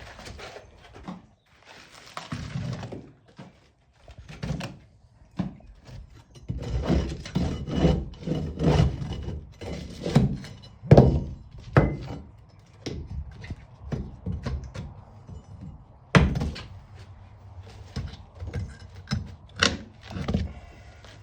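Rotten wooden floorboards being pried up and torn out: irregular wooden knocks, thuds and cracks, with a scraping rasp a couple of seconds in and the loudest hits about eleven and sixteen seconds in.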